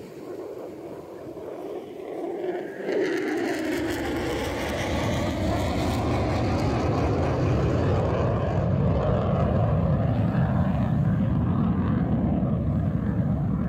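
Military fighter jet flying past: a roar swells suddenly about three seconds in, with a falling pitch sweep as it passes, then settles into a sustained low rumble.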